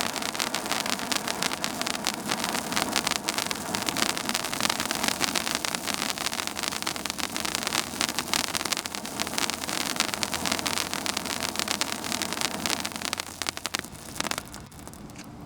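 Ground firework fountain (Super Silver Waterfall, a silver-star smokeless-type F2 fountain) spraying with a steady hiss full of small crackles, dying down sharply near the end.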